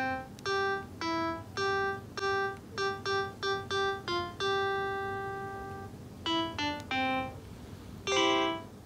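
Piano-like keyboard playing a simple melody one note at a time, with one note held for about a second and a half in the middle and a final note near the end.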